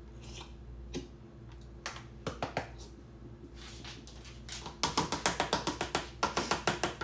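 Upturned glass jar of sweet relish shaken over a bowl to get the relish out: a few scattered knocks, then from about five seconds in a quick, even run of sharp knocks, about six a second.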